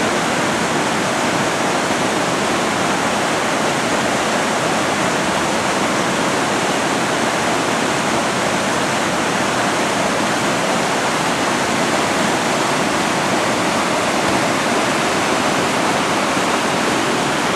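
Whitewater rapids rushing, a loud, steady noise of churning river water.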